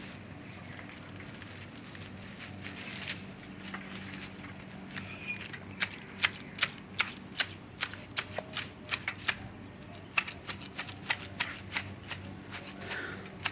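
Hand pruning shears snipping twigs, a run of sharp clicks about two to three a second starting around halfway in, over a steady low hum.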